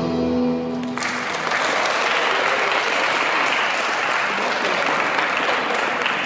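Music ends on a held chord about a second in, and a room of people starts applauding and keeps clapping.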